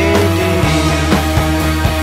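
Loud rock music with a steady drum beat and sustained instrumental notes.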